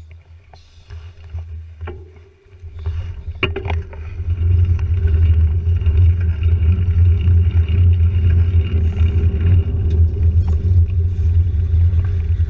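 Wind and road rumble buffeting the microphone of a camera on a moving two-wheeler. It is low and gusty, builds up about three seconds in and then stays loud.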